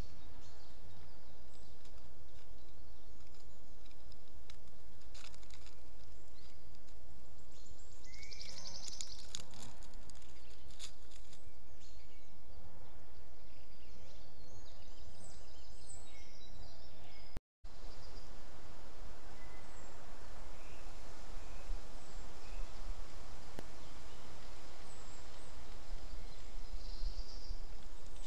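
Forest ambience: a steady low background rumble and hiss with scattered small-bird chirps and calls, busiest about a third of the way in. The sound drops out for a moment about two-thirds through.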